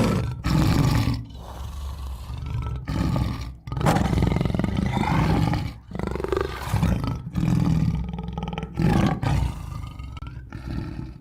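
Tiger roaring and growling, a string of loud low roars broken by short pauses every second or two.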